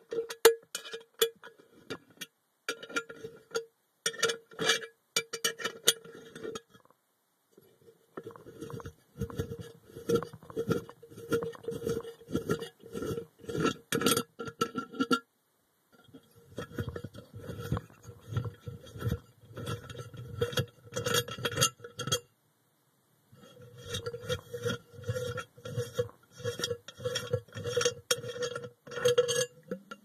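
Water boiling under vacuum inside a sealed chamber: rapid, irregular clicks and knocks of bursting bubbles against the container, with a glassy ringing, in spells broken by three short silences.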